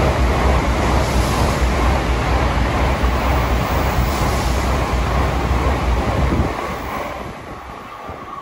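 Tokaido Shinkansen bullet train passing through the station at speed without stopping: a loud, steady rush of air and rail noise with a deep rumble. The rumble cuts off suddenly as the last car goes by about six and a half seconds in, and the rush then fades away.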